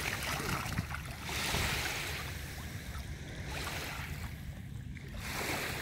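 Small waves washing at a shallow, sandy shoreline, with wind gusting on the microphone in a few swells of hiss.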